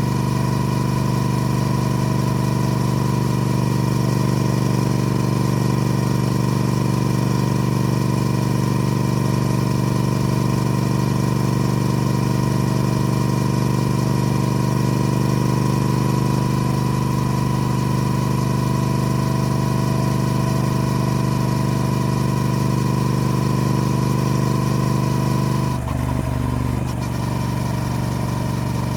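Triumph Speed Twin's parallel-twin engine running at a steady, unchanging speed, then its note drops about three-quarters of the way through.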